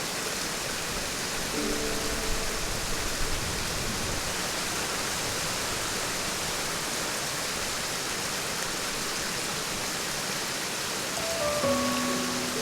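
Steady rush of a mountain stream, with a few soft held music notes about a second and a half in and again near the end.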